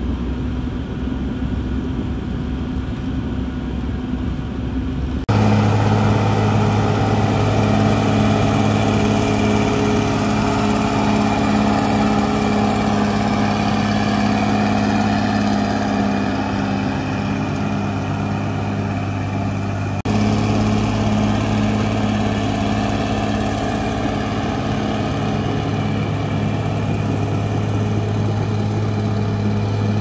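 Caterpillar D6R XL bulldozer's diesel engine running steadily as the machine pushes earth, a low hum with overtones that gets louder about five seconds in and shifts again about two-thirds of the way through.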